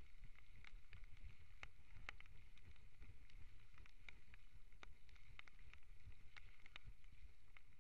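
A mountain bike riding fast down a wet, rough forest trail, heard from a bike- or helmet-mounted camera: a steady low rumble of wind and trail vibration, with irregular sharp clicks and ticks throughout.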